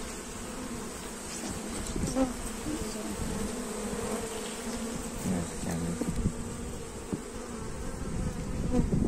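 Many honeybees buzzing together in a steady drone, with several hums shifting slightly in pitch as bees fly about the open colony.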